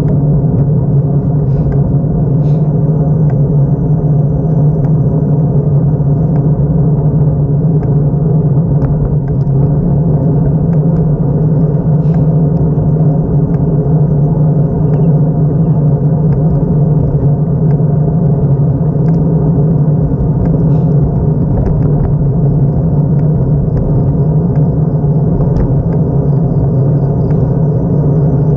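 Steady low rumble of wind and road noise picked up by a camera on a moving bicycle, with a few faint clicks scattered through it.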